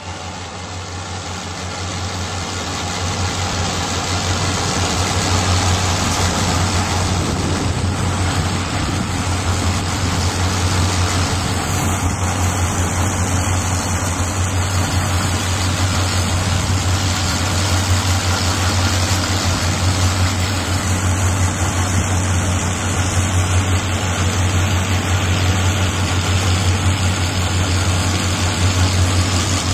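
Tractor diesel engine running steadily under load, driving a rear-mounted trencher as it digs a trench, with a strong low steady hum; the sound swells over the first few seconds, then holds.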